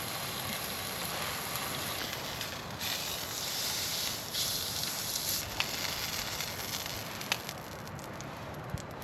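Burger patties sizzling in a frying pan, the hiss swelling for a couple of seconds in the middle, with a few sharp clicks near the end.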